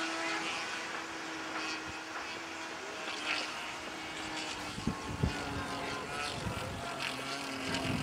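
A radio-controlled model airplane's glow engine droning steadily in flight overhead. From about five seconds in, low thumps of wind buffet the microphone.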